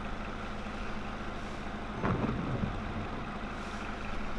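A vehicle engine idling steadily under the hiss of heavy rain, with one brief louder sound about two seconds in.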